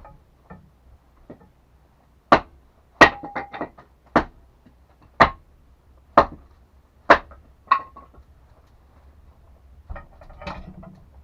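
A series of sharp knocks or blows, roughly one a second, about eight in all, a few ringing briefly, followed by a softer clatter near the end.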